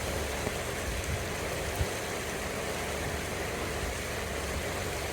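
Steady running noise of a car heard from inside the cabin, with one light knock a little under two seconds in.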